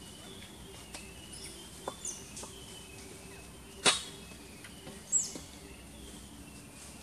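Faint steady outdoor background broken by a few sharp clicks, the loudest about four seconds in, and two short high chirps that fall in pitch, about two and five seconds in.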